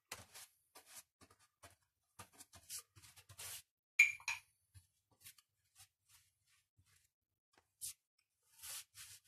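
Paintbrush strokes spreading thinned PVA glue over a papier-mâché baseboard: short, scratchy swishes at irregular intervals. There is a sharp tap about four seconds in.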